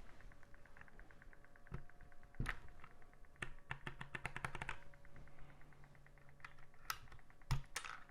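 Mechanical keyboard clicking as a keycap is fitted and its keys pressed: scattered sharp plastic clicks, with a quick run of clicks in the middle.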